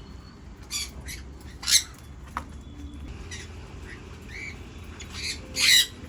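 Budgerigars giving short, scratchy squawks and chirps, about seven calls spread out, the loudest near the end, over a low steady hum.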